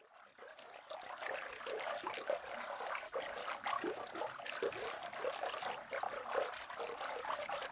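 Shallow stream trickling and babbling over stones, a dense run of small irregular gurgles that fades in over the first second and then holds steady.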